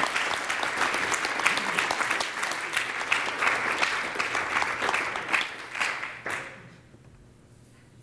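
Audience applauding: dense clapping from many hands that thins and fades out about six and a half seconds in.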